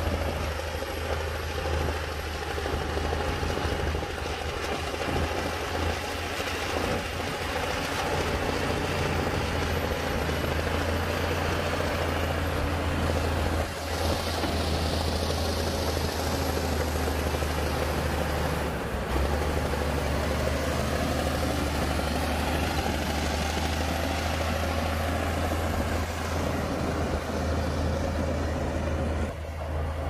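Bulldozer's diesel engine running steadily with a low drone as it works, its pitch easing down and back up a little around two-thirds of the way through.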